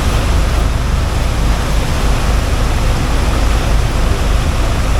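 Steady loud rushing noise with a deep rumble aboard a small boat under way: wind, water and engine noise together.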